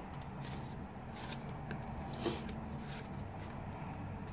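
Handheld corner-rounder paper punch rounding the corners of a cardstock bag piece: one sharper click about two seconds in, with fainter clicks and the rustle of the card being turned around it.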